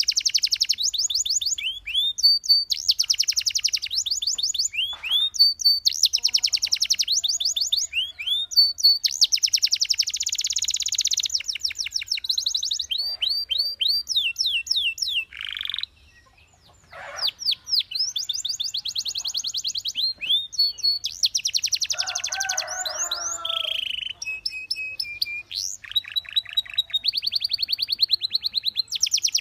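Canary singing a long song of fast trills: runs of quickly repeated sweeping notes, some so rapid they blur into rolls, with a brief pause about sixteen seconds in.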